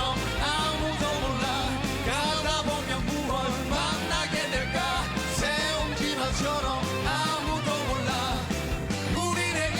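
Rock song played by a full band with male vocals: singing or a lead line over steady drums and bass.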